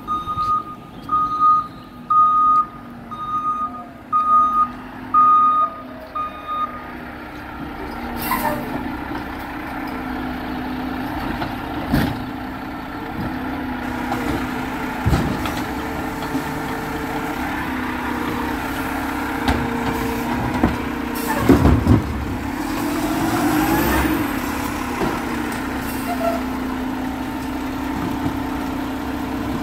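Garbage truck backing up, its reversing alarm beeping about once a second, then stopping after about seven seconds. A burst of air hiss follows, and the truck's engine runs steadily with a few clanks about two-thirds of the way through.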